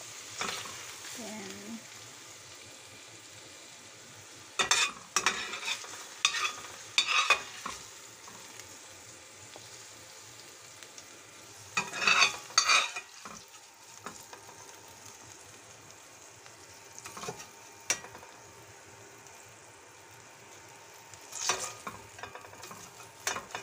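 Oil sizzling faintly in a stainless steel frying pan while a perforated metal spatula scrapes and knocks against the pan, scraping out the last of the fried minced pork. The scraping comes in short clusters of strokes about five seconds in, around twelve seconds in and again near the end, with single clicks in between.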